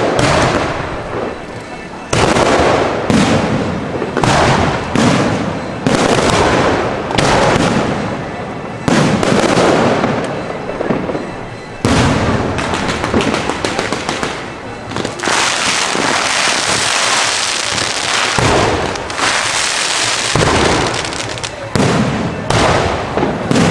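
Aerial fireworks shells bursting one after another, each a sudden bang trailing off. From about 15 to 20 seconds in, a dense crackling hiss of crackle effects fills the gaps.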